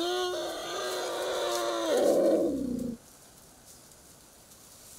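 Elephant calf calling in distress: a loud, pitched cry of about two seconds that turns rough and louder, then stops abruptly about three seconds in.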